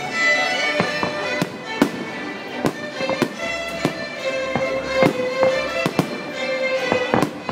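Aerial fireworks shells bursting in irregular sharp bangs, about a dozen over several seconds, over music with strings playing steadily underneath.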